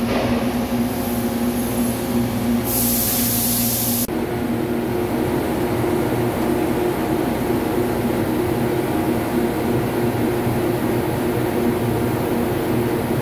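Horizontal CNC boring mill running a cutter in the steel hub bore of a large wheel: a steady mechanical drone with a low hum. A loud hiss cuts in for about a second and a half, around three seconds in.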